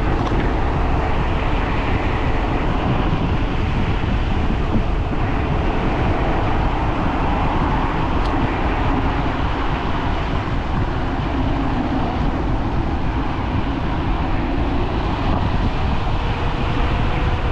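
Wind rushing over the microphone and tyre noise from a Teverun Fighter Supreme Ultra dual-motor electric scooter riding at speed, with a faint motor whine that rises slightly near the end.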